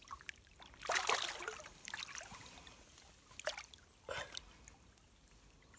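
Water splashing in a shallow stream as a hand grabs a hooked brown trout, over the steady trickle of the current. There are several splashes; the loudest comes about a second in.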